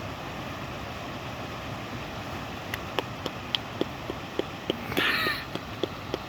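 Blizzard wind blowing steadily, with a run of sharp clicks starting about three seconds in and a brief squeak about five seconds in.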